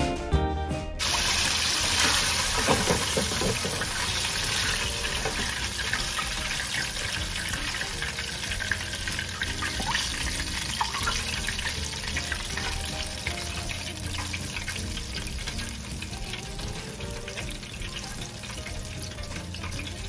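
Chicken pieces sizzling and crackling in the hot oil of an electric deep fryer, starting about a second in and slowly growing quieter as the basket sits lifted above the oil to drain.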